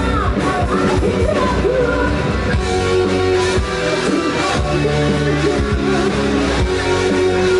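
Live band playing loud rock-style music, a singing voice over drums and amplified instruments.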